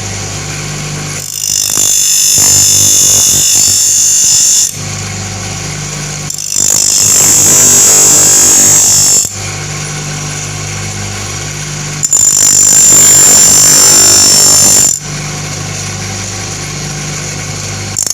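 Power grinder running steadily while it sharpens the tips of a wood-cutting blade: three grinding passes of about three seconds each, each adding a loud high-pitched grinding over the motor's hum, with the motor alone running between them.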